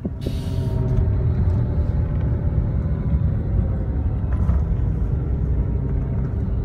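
Steady low road and engine rumble heard from inside a moving road vehicle, with a faint engine hum running through it. A brief hiss comes about half a second in.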